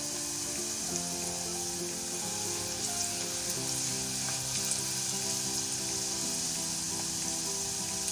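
Chopped garlic sizzling steadily as it fries in hot oil in a steel pot, for a tadka, with a spatula stirring it partway through. Light background music plays under it.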